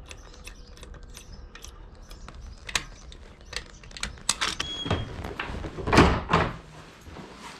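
A door being worked: scattered clicks and knocks of its handle and latch, then a heavy thump about six seconds in with a second, smaller one just after, as the door swings and bangs.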